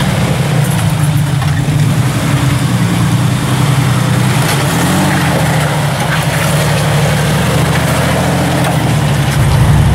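Jeep Comanche pickup's engine running steadily at low revs as the truck crawls over rocks and mud, getting louder in the low range near the end as it passes close by.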